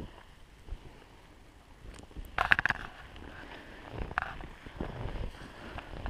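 Footsteps crunching and swishing through deep snow: quiet for about two seconds, then a few uneven crunching steps, the loudest cluster a little over two seconds in.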